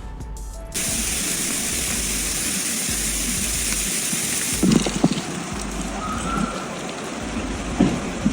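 Steady outdoor winter-storm hiss of falling precipitation and wind. It starts about a second in, then changes to a slightly quieter hiss at a cut partway through.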